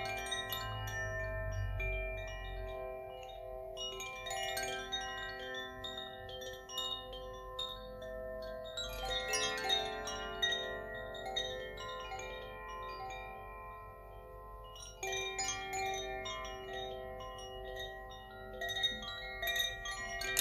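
Metal chimes sounded in runs of many quick, tinkling strikes, the notes ringing on and overlapping. A fresh run starts about every four to six seconds.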